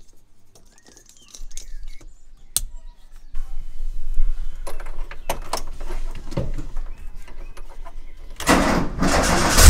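Light clicks, knocks and a jingle of keys, then about eight and a half seconds in the VW T3 Syncro's engine is started and runs loudly. It has a new idle control valve and fuel pressure regulator, but the owner expects it still runs poorly.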